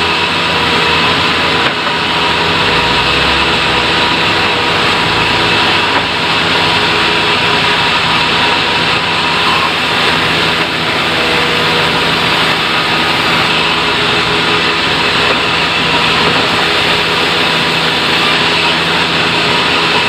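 Sawmill machinery running steadily: a loud, continuous mechanical noise with several steady tones and no let-up.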